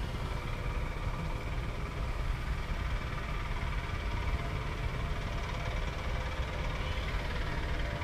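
Honeybees humming steadily over an open hive box, heard over a steady low rumble.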